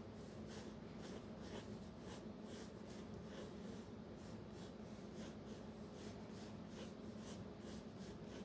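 Pencil scratching on sketchbook paper in short, repeated strokes, a few each second, faint, over a low steady hum.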